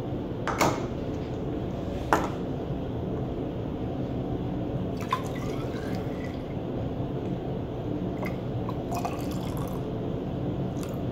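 Water poured from a cut-off plastic soda bottle through a funnel into a graduated cylinder, trickling and dripping. Two sharp knocks stand out about half a second and two seconds in.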